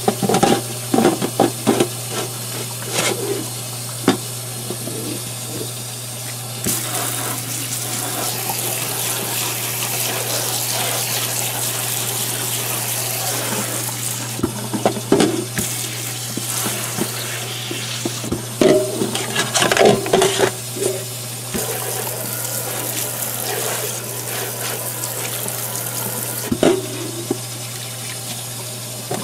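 Water running from a faucet into a stainless-steel sink, splashing over a graphics-card fan and heatsink as it is scrubbed with a paintbrush. Irregular knocks and scrapes come from the brush and the card against the sink, and the water gushes harder twice.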